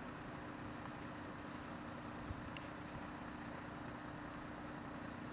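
Faint, steady hum of an idling vehicle engine, with one soft knock about two seconds in.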